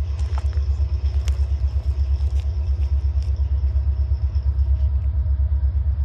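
Low, pulsing rumble of an approaching Norfolk Southern freight train led by an SD70ACC diesel locomotive, with a few faint ticks.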